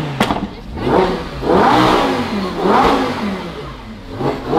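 Lamborghini Huracán's V10 revved while the car stands still: about four quick blips, the pitch rising and falling roughly once a second.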